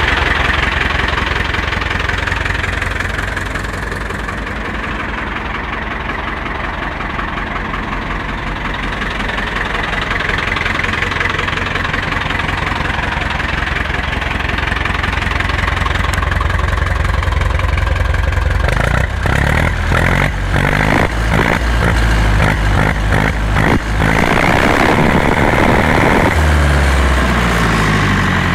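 Ursus C-360 tractor's four-cylinder diesel engine running at idle, heard close to the engine bay. From about two-thirds through, a run of uneven knocks and dropouts breaks into the sound, and near the end the engine's pitch rises.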